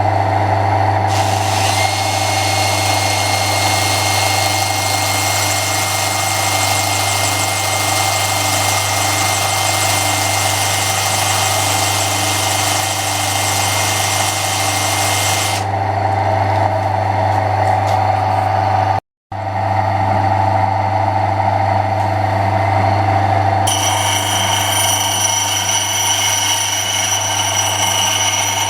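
Steady mains-powered machine hum with a mid-pitched running whir. A high hiss with a faint whistle joins about a second in and stops around fifteen seconds. The sound cuts out for a moment about nineteen seconds in.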